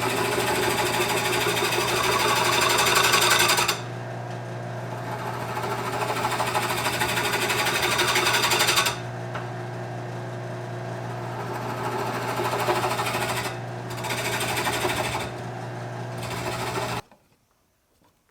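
Small Rikon wood lathe running with a steady motor hum while a tool works the spinning wood in loud rasping spells of several seconds. The lathe then shuts off abruptly near the end.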